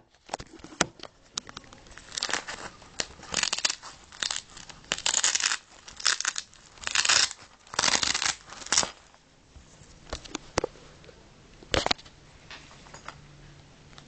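Fabric sports bag being handled: a run of short rasping, tearing-like sounds over several seconds, such as a zip or hook-and-loop strap being worked, then a few sharp clicks.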